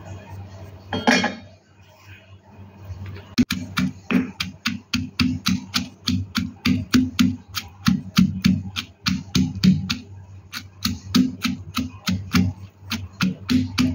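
Stone pestle pounding sliced onions and garlic in a granite mortar: a steady run of sharp, crunching strikes with a dull thud, about three to four a second, starting about three and a half seconds in after a brief clatter of slices going into the bowl.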